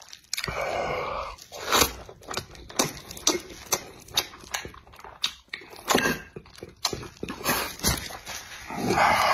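Close-miked eating sounds: wet chewing and lip-smacking on chicken thigh meat pulled from the bone, with many sharp mouth clicks several times a second.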